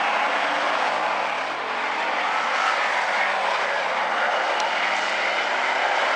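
Hobby stock race cars running laps on an oval track: a steady mix of engine noise from several cars at racing speed.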